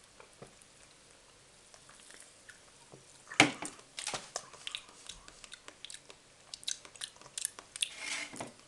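Mouth sounds of a person tasting a sparkling lychee drink: a loud sip or gulp about three and a half seconds in, then a run of short lip smacks and mouth clicks while he tastes.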